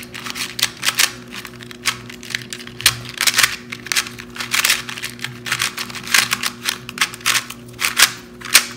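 Stickerless 2x2 speed cube turned rapidly by hand, its plastic layers clacking in quick irregular runs of clicks. The cube is tight and not tensioned evenly out of the box.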